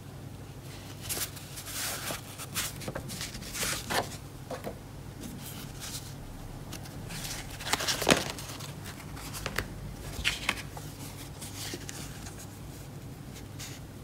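Paper and thin card inserts being handled: scattered rustles and light taps as a card is shuffled over a folded paper manual and a sticker sheet is picked up, the loudest shuffle about eight seconds in.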